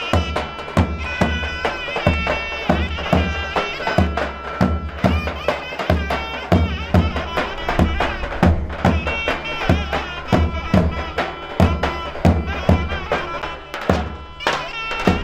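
Traditional folk dance music: a reedy wind instrument playing a wavering melody over a held drone, with a steady drum beat of about two strokes a second.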